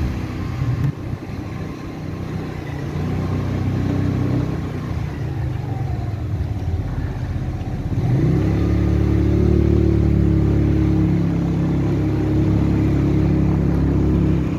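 Motorcycle engine running while riding along a street. About eight seconds in it revs up with a quick rise in pitch, then holds a steady, louder note.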